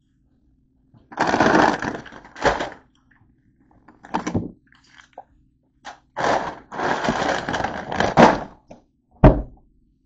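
Things being handled: bursts of rustling and clatter broken by sharp thumps, the last and loudest thump near the end.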